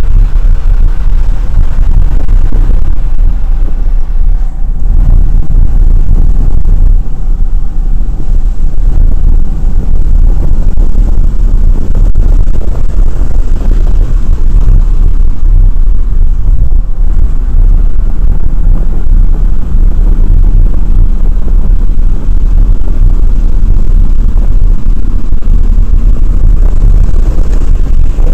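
Porsche 997 Turbo at track speed, heard through a camera inside the cabin: a loud, steady, distorted low rumble of the twin-turbo flat-six and road noise that overloads the microphone.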